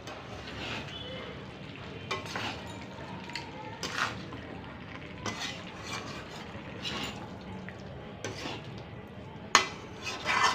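A metal spoon stirring a vegetable curry in a metal kadai, scraping the pan and knocking against its side every second or two; the loudest clinks come near the end.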